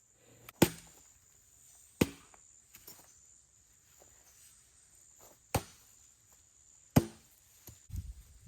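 Four sharp strikes in two pairs, each pair about a second and a half apart, like chopping or hammering on wood. A steady high insect drone runs underneath.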